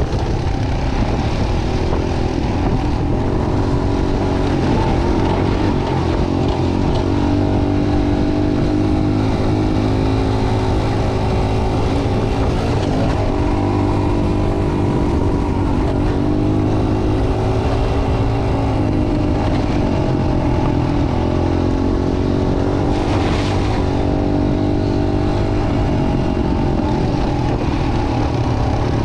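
Dirt bike engine running while riding, its pitch rising and falling a little with the throttle, over a heavy low rumble. A short rush of hiss comes about 23 seconds in.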